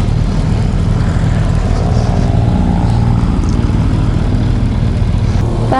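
Motorcycle engine running steadily under way, with wind rushing over the rider's helmet microphone.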